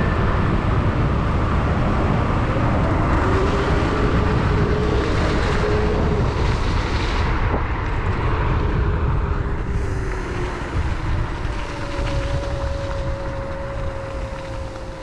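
Wind rushing over the microphone as a Kaabo Wolf King GT electric scooter rides along, with the thin whine of its hub motors rising and falling with speed. The wind noise fades over the last few seconds.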